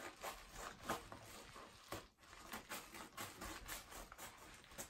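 Scissors cutting through a yellow padded paper mailer: a string of short, sharp snips with crinkling of the envelope paper.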